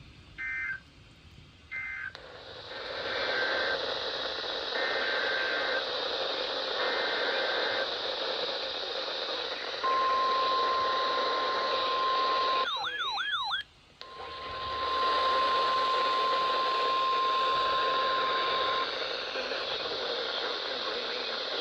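NOAA Weather Radio reception over steady static: a warning alert begins with several short warbling SAME data bursts, then the long 1050 Hz warning alarm tone. About halfway through, a second or so of warbling, siren-like electronic alert tone breaks into the alarm before the steady tone resumes.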